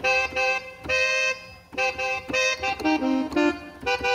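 Electronic arranger keyboard played slowly with an accordion voice: a run of separate held notes, each about half a second long, from a C-minor cumbia melody, with lower notes joining about three seconds in.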